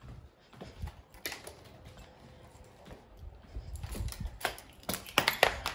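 Light clicks and knocks, scattered at first and growing busier and louder in the last two seconds.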